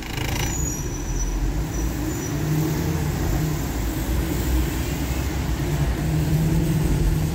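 Road noise heard from inside a moving car: a steady engine hum under the hiss of tyres on a wet road.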